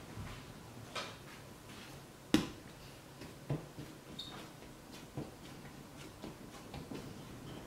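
Sparse soft knocks and taps of hands and bread dough on a bamboo cutting board, with one sharper knock about two seconds in.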